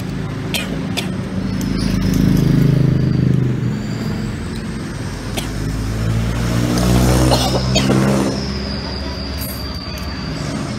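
Motor vehicles passing on the street, their engines rumbling louder twice, a couple of seconds in and again about seven seconds in. A few sharp clicks of spoons and forks against ceramic bowls, and a thin high whine near the end.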